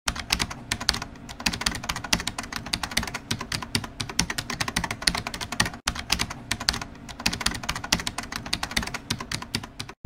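Rapid computer-keyboard typing clicks, a continuous run of keystrokes, with a momentary break a little past halfway. It is a typing sound effect that goes with text being typed onto the screen.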